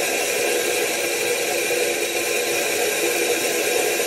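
Stainless steel corn mill grinding dried corn, a steady whirring hiss that does not change, with the ground corn pouring from the spout into a plastic basin.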